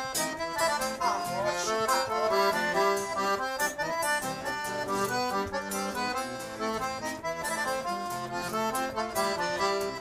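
Piano accordion playing a quick, lively instrumental solo in sertanejo style over a strummed acoustic guitar.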